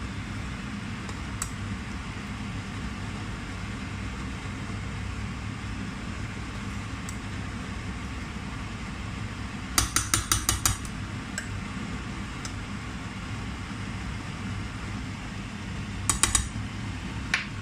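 Metal spoon stirring spinach in a stainless steel pot, clinking against the pot: a quick run of clinks about ten seconds in and another near the end, over a steady low hum.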